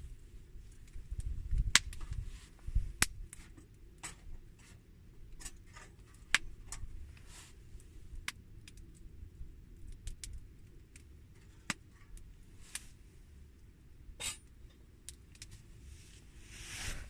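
Irregular sharp clicks and light taps, scattered a few at a time, with a brief rustling burst near the end.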